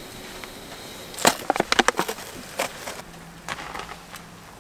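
Clicks and rattling of a small metal Primus kettle being handled on a camp stove's metal grate: a quick cluster of sharp clicks about a second in, then a couple of single clicks, followed by hot water being poured into an instant ramen cup.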